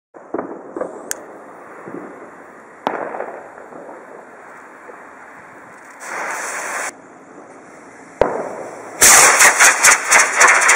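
A jet lighter hisses for under a second as a firework rocket's fuse is lit. About two seconds later, after a sharp click, the Ros-40 rocket motor ignites with a loud rushing, crackling burn that pulses rapidly as the rocket climbs.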